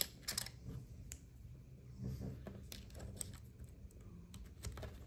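Irregular light clicks and taps of fingers typing and clicking on a Lenovo Yoga 7i laptop's keyboard and touchpad.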